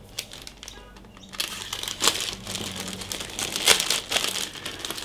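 Crinkling and rustling of the plastic bag around a plastic model kit sprue as it is handled. It starts about a second and a half in, with a few louder crackles.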